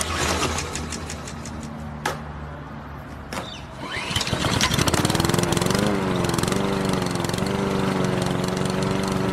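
Lawn mower engine being pull-started: a low sputter with a couple of sharp pulls, then it catches about four to five seconds in and runs steadily at a higher, louder pitch.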